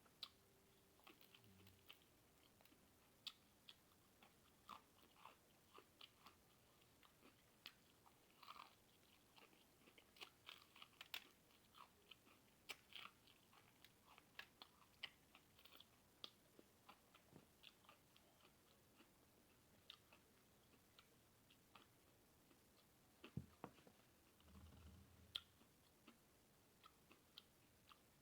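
A person chewing and biting food close to the microphone: many short, quiet crunching clicks at an uneven pace, as in a mukbang eating show.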